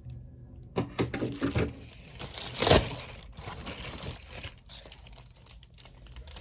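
Packaging crinkling and tearing as an Amazon package is opened by hand: irregular rustles and sharp crackles, loudest about halfway through.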